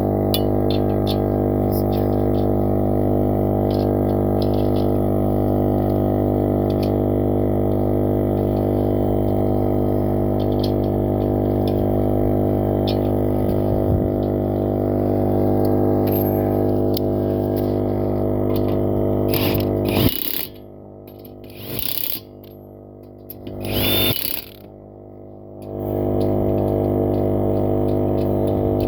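A small motor running with a steady, droning hum. It stops about two-thirds of the way through, a few short bursts of hiss are heard, and then it starts up again.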